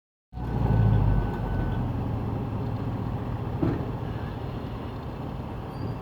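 Range Rover Sport SVR's supercharged 5.0-litre V8 running, loudest about a second in, then settling to a steady lower level.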